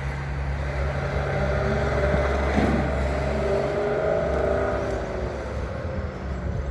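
Drill rig truck's diesel engine running steadily under load, with a whine that rises and falls over a few seconds in the middle.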